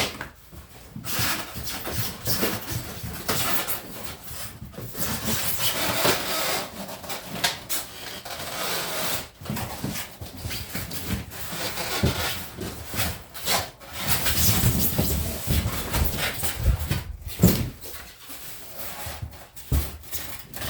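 Cardboard box and packaging being opened and handled: irregular rustling, scraping and rubbing with occasional knocks.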